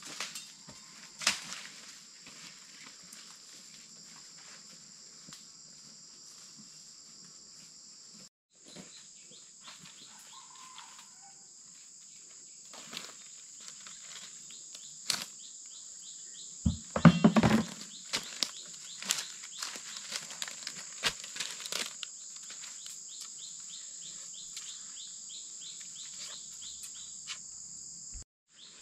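Steady high-pitched drone of insects, with scattered rustles and snaps of dry leaves and twigs being stepped on and handled, and a louder short burst of rustling a little past halfway.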